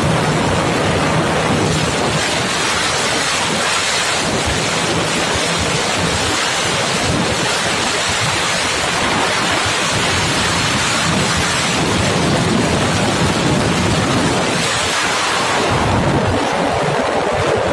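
Loud, steady rush of wind over the microphone of a Bajaj Pulsar RS 200 ridden flat out at about 130 to 145 km/h, with its single-cylinder engine only faintly heard underneath.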